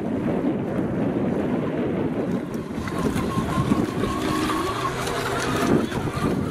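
Venom King of Shaves electric brushless RC catamaran running over choppy water, a noisy rush of spray and hull on the chop, with a thin motor whine showing through about halfway. Wind buffets the microphone.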